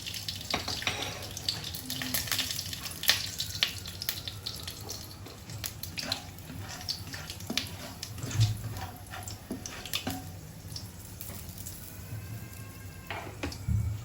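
Whole spices (cinnamon, star anise, cardamom and cloves) sizzling in hot oil in a pan, with irregular crackles and pops that thin out after the first few seconds.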